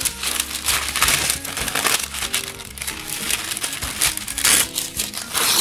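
Sheet of oven parchment paper crinkling as it is folded and creased by hand, over background music.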